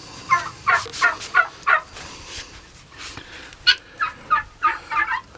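Guinea fowl calling: a quick run of about five repeated calls, roughly three a second, then a second run of calls from about three and a half seconds in.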